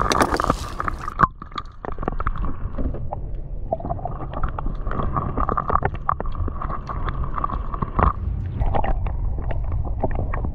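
Muffled underwater sound picked up by a submerged action camera: low rumbling and gurgling of moving water, with many small scattered clicks and ticks as a hand works among the oyster shells on the bed, over a faint steady hum.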